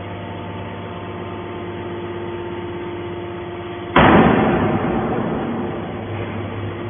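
Horizontal hydraulic scrap-metal baler running with a steady hum, then about four seconds in a sudden loud crash of metal that fades away over the next two seconds.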